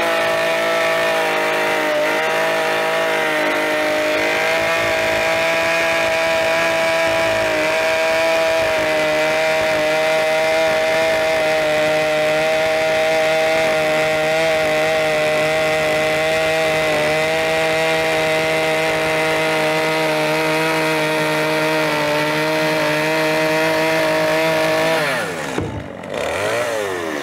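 Gasoline chainsaw running at full throttle, cutting steadily through the logs of a log cabin wall. Near the end the throttle is let off and the engine note falls away.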